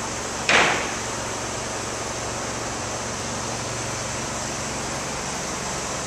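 Steady city street background noise with a low hum. About half a second in, one short sharp burst of noise, the loudest sound here, fades away quickly.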